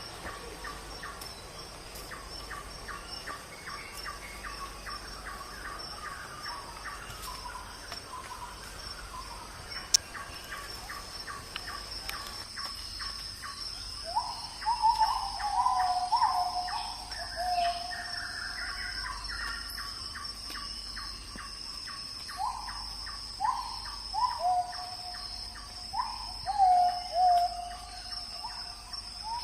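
Night forest ambience: a steady high-pitched insect drone with a fast, even ticking underneath. From about halfway, a repeated short call that jumps up and slides down in pitch sounds over and over, with a sharp click about a third of the way in.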